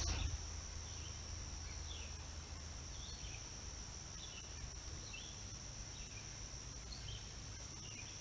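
Steady high-pitched drone of insects, with short falling bird chirps about once a second, over a low hum. A brief bump right at the start.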